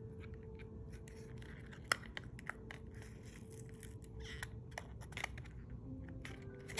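Cosmetic packaging being handled and opened: rustling and scraping with many small sharp clicks and taps.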